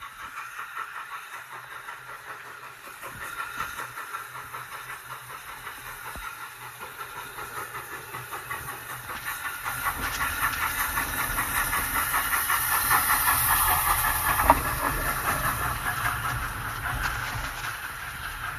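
Steam locomotive working up the line with a steady rhythm of exhaust beats and hissing steam, growing louder as it nears and passes. Its carriages then rumble and clatter by on the rails, with one sharp knock about fourteen seconds in.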